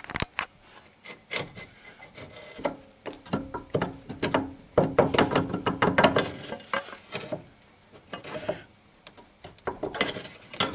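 A Honda Civic crankshaft pulley being worked off its shaft with a steel pry bar: metal knocks, clicks and scraping as the bar levers against the pulley and the pulley is rocked loose. The knocks are densest in the middle of the stretch.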